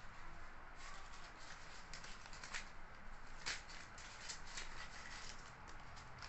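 Faint rustling and light ticks of paper banknotes being handled and sorted for counting.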